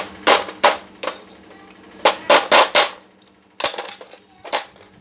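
A series of about nine sharp knocks in uneven groups during work on an air impact wrench: three in the first second, a quick run of four around the middle, and two near the end. A steady low hum runs underneath.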